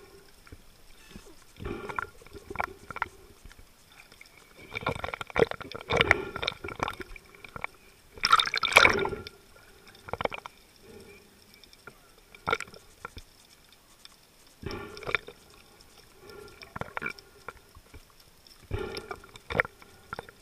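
Water gurgling and sloshing in irregular bursts every second or two, heard through an underwater camera, with the longest and loudest burst about eight seconds in.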